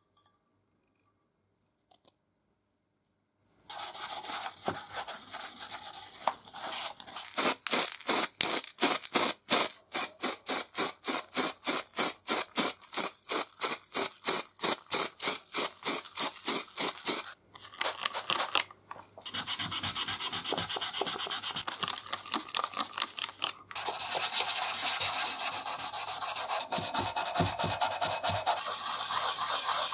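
Hand wet-sanding of an oiler's grey-coated sheet-metal can with a small piece of sandpaper: quick back-and-forth rubbing strokes, about three a second, that become denser and more continuous in the second half. It is nearly silent for the first few seconds.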